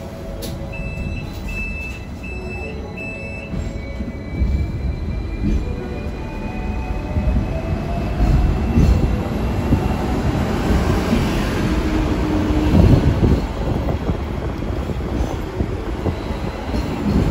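Hong Kong double-decker electric tram pulling away: four short, evenly spaced beeps near the start, then a whine rising slowly in pitch as it gathers speed, while the rumble of the wheels on the rails grows louder.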